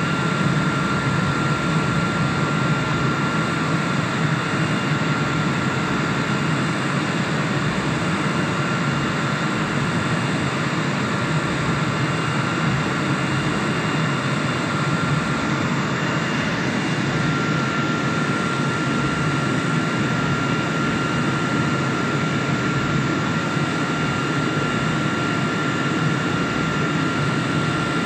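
CNC router's spindle running steadily with a high whine while its end mill cuts wood on an adaptive milling pass, the cutting noise running underneath. The whine drops out for about a second around the middle, then returns.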